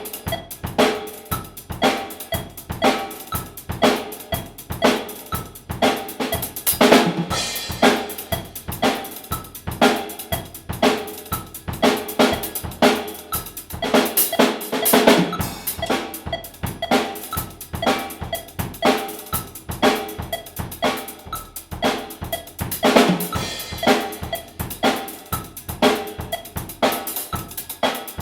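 Drum kit played solo: a steady stream of snare and bass drum strokes with cymbals, and big cymbal crashes about every eight seconds.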